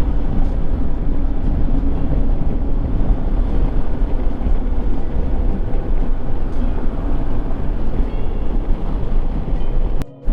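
Royal Enfield Himalayan's 411 cc single-cylinder engine running steadily while riding, with wind rushing over the microphone. The sound drops out for a moment near the end.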